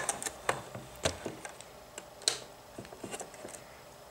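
Paper banknote handled by fingers: a few quiet, scattered crisp clicks and crinkles of the paper, the sharpest about two seconds in.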